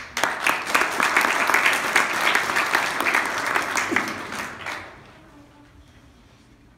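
Audience applauding, with one person clapping close to the microphone; the clapping starts sharply and dies away about five seconds in.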